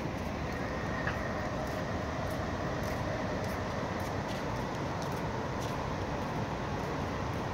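Steady hum of road traffic across the water, with a faint ticking about twice a second.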